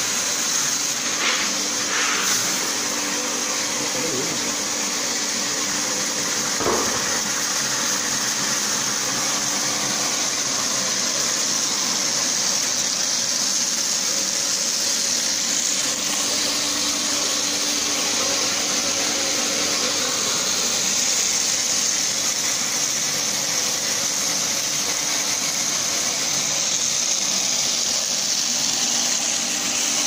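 Stainless-steel soybean washing machine running: a steady motor drone with rushing water as the beans are washed and flushed through its spout into the tank. A few light knocks come in the first several seconds.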